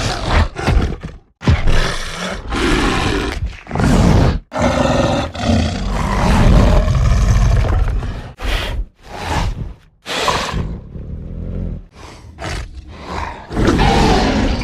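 Disney's Carnotaurus roar sound effects: a run of loud, rough roars and growls, some short and some drawn out, the longest lasting about four seconds near the middle, with brief breaks between them.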